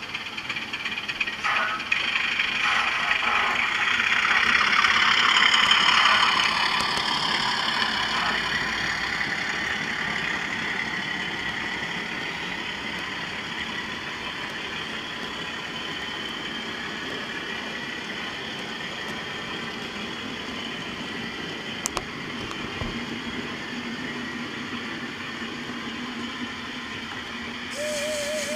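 DCC sound-fitted model diesel locomotive running with a train of tank wagons: the decoder's diesel engine sound from its small onboard speaker, mixed with wheels running on the track. It is loudest as the train passes, about four to six seconds in, then settles to a steady level. Near the end comes a short wavering tone.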